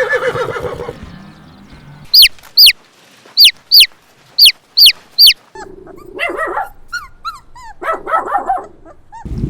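Animal calls. A wavering call trails off in the first second, then seven short, sharp, high calls come in quick succession, each falling steeply in pitch. A jumble of smaller squeaks and cries follows.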